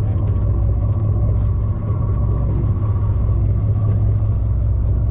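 Steady low rumble of a sportfishing boat's engines running, with a faint steady whine above it.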